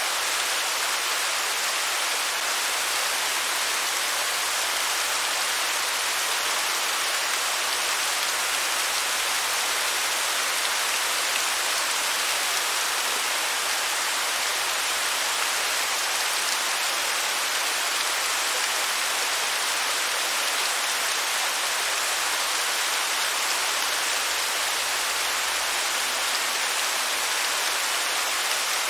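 Waterfall: water falling in a steady, even hiss, bright and with little low rumble.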